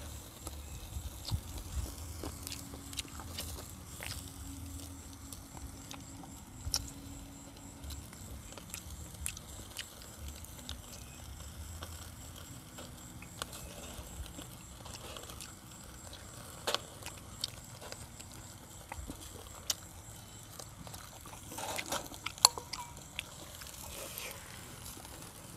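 Low steady background rumble with scattered small clicks and taps from people eating around a small charcoal grill, one sharper click near the end.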